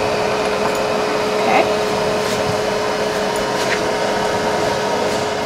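Dust-collection vacuum running steadily: a constant rushing noise with a steady hum under it. A few light clicks come from the collet being handled at the spindle.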